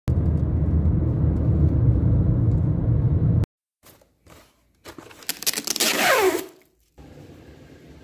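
Steady low rumble of a car driving, heard from inside the cabin, cutting off suddenly about three and a half seconds in. Near six seconds a brief louder sound glides down in pitch.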